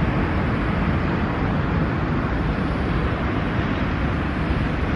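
Steady rush of road traffic, an even, unbroken roar.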